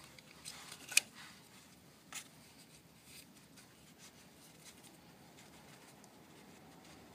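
Nylon harness webbing being threaded through a plastic car-seat chest clip: faint rustling and sliding, with a sharp click about a second in and a softer one about a second later.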